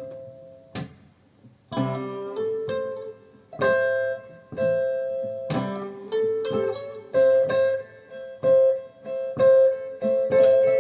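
Recorded blues instrumental played back through Harbeth 30.1 loudspeakers: acoustic guitar picking a run of single notes and chords, without vocals.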